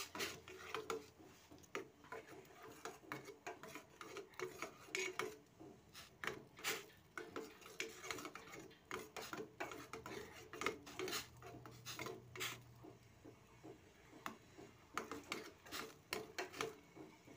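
A spoon stirring tea in a steel pot, scraping and clinking irregularly against the pot.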